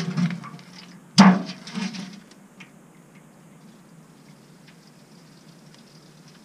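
Handling noises as a drain hose and metal oil drum are shifted by hand during an oil change: a clatter, then a sharp knock about a second in with rustling around it. After that only a low steady hiss with a few faint ticks.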